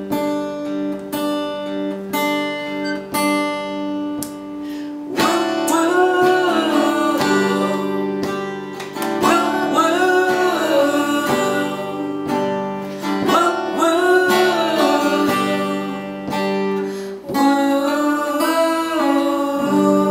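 Epiphone acoustic guitar strummed in a steady rhythm, with singing coming in about five seconds in and carrying on over the chords.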